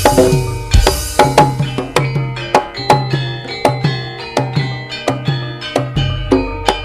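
Javanese karawitan gamelan music: struck metallophone notes ringing over steady, deep hand-drum strokes about every half second. A cymbal-like crash comes at the start and again about six seconds in.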